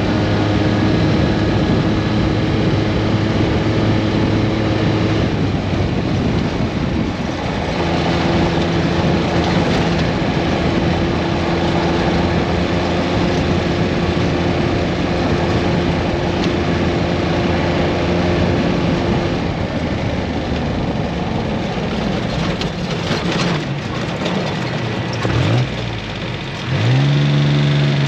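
A vehicle's engine running while driving, holding a steady pitch for several seconds at a time and shifting speed a few times, over a steady rushing noise. Near the end it revs up quickly.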